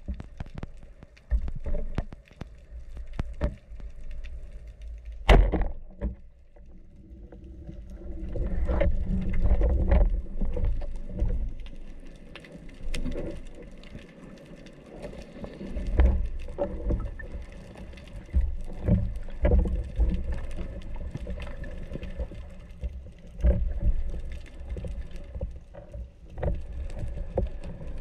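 Underwater sound through a camera housing mounted on a speargun: a low, uneven rumble of moving water that swells and fades, with scattered clicks and knocks. One sharp, loud crack about five seconds in.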